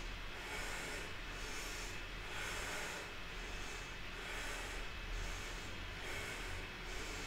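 Soft, slow breathing through the nose over a steady faint room hiss, the breaths swelling and fading every second or two.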